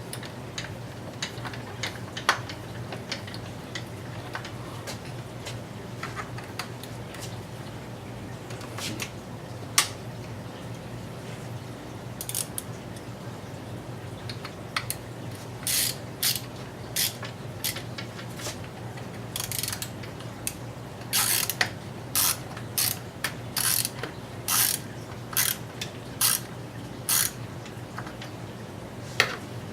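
Ratcheting hand tool clicking in short bursts while fastening parts of an RC buggy's engine install, scattered at first and then about once a second in the second half, over a steady low hum.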